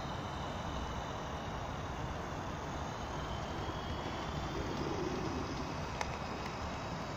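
H0-scale model train, a Swedish G-class steam locomotive pulling three loaded Oms wagons, running along the track with a steady rolling noise and a faint high motor whine. There is a single sharp click near the end.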